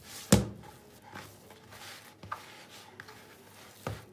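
Hands punching down risen yeast dough in a plastic bowl to knock the air out after proofing: soft squishing of the dough with dull thumps, a loud one just after the start and smaller ones about halfway and near the end.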